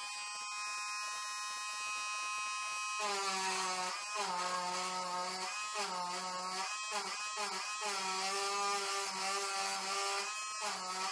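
Small electric eraser's motor whirring as its tip is worked into the painted pupil to pit out a highlight. It runs steadily at first; from about three seconds in the tone drops and wavers, breaking off briefly several times.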